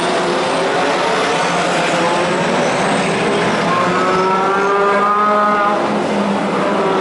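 Racing cars' engines running past in a steady stream at parade pace, with tyre and engine noise throughout. About four seconds in, one car's engine rises in pitch as it accelerates past, then eases off.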